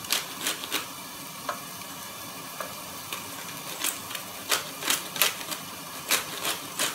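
Meat, chicken and onion frying in oil in a stainless steel pot: a steady sizzle with sharp, irregular crackles, coming thicker in the second half.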